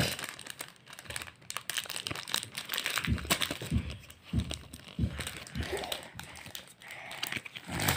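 Pokémon trading cards being shuffled and flicked through by hand: a run of quick, crisp card clicks and crinkly rustles, with a few dull low thumps about halfway through.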